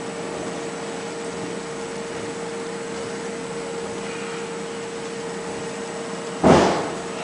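Steady machine-like hum with a constant tone and hiss, broken by one brief loud noise about six and a half seconds in that dies away within half a second.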